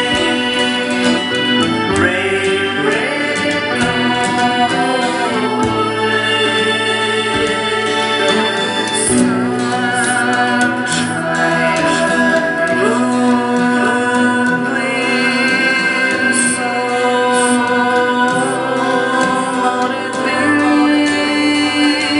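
Music: a recorded band track with sustained lead notes that slide in pitch now and then, with a steel-string acoustic guitar played along over it.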